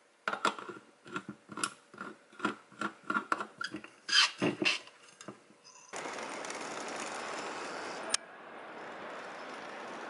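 Lid being screwed onto a metal insulated tumbler: a run of short scraping clicks from the threads, two or three a second. About six seconds in this gives way suddenly to a steady outdoor background hiss.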